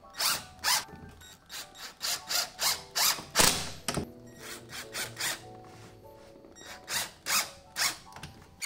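Cordless drill-driver driving a screw into the wooden edge of a drawer to fix its loose bottom panel, run in short, irregular bursts.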